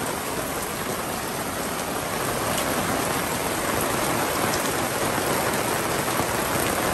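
Heavy rain pouring down steadily, falling on a fabric awning overhead and on a wooden deck, as an even, unbroken hiss.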